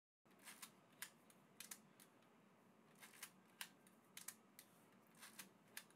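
Faint mechanical clicks from a Contax T compact film camera being worked by hand, in keeping with its film being wound on: about fifteen short clicks, several in quick pairs.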